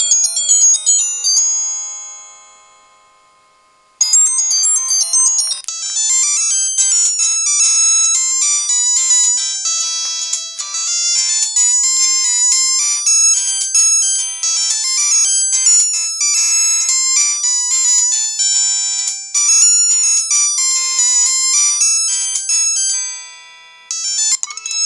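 Samsung SGH-C260 mobile phone ringtones, polyphonic electronic melodies. One tune ends and fades away in the first few seconds, a new busy melody starts abruptly about four seconds in and plays for some twenty seconds before fading out, and the next tune begins just at the end.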